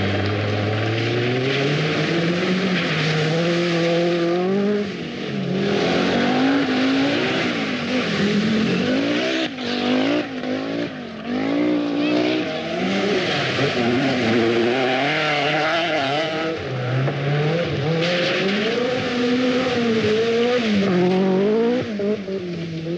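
Peugeot 205 Turbo 16 rally car's turbocharged four-cylinder engine revving hard on a gravel stage. Its pitch climbs at the start and then rises and drops again and again through gear changes and lifts, over tyre and gravel noise.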